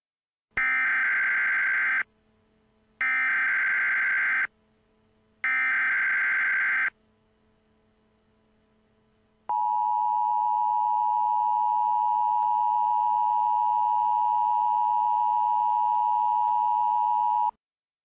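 NOAA Weather Radio Emergency Alert System signal: three bursts of SAME header data tones, each about a second and a half long with a second's gap between them. Then comes the steady single-pitch 1050 Hz warning alarm tone for about eight seconds, which cuts off suddenly. It heralds a severe thunderstorm watch.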